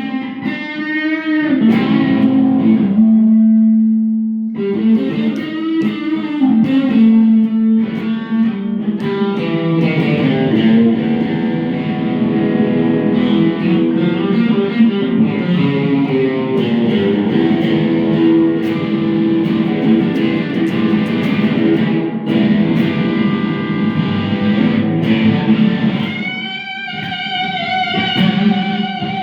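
Electric guitar played through a Boss Katana amp running into a Fender Acoustasonic amp: a lead line of sustained notes with bends and vibrato, breaking off briefly about four seconds in before playing on.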